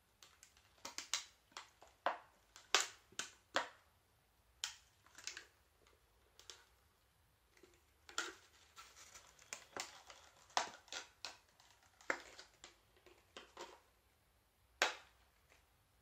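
Irregular sharp clicks and crackles of hard plastic being handled, as a new laptop RAM stick is taken out of its plastic packaging.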